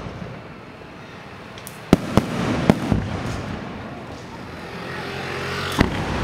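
Aerial fireworks bursting overhead. Sharp bangs, four in quick succession about two seconds in and one more near the end, sound over a continuous noisy rush.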